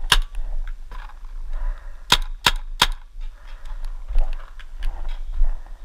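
Paintball markers firing: a sharp pop at the start, then three quick shots in a row about two seconds in, with a few fainter pops in between.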